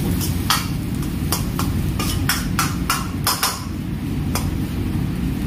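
Steel ladle clanking and scraping against an iron wok while stir-frying egg: a quick irregular series of metallic strikes, thickest from about two to three and a half seconds in, over a steady low rumble.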